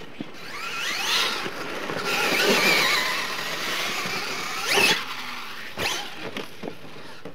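Radio-controlled monster truck's motor whining as it accelerates, the pitch rising sharply in two surges, over the hiss of tyres throwing loose dirt. A short knock comes about six seconds in.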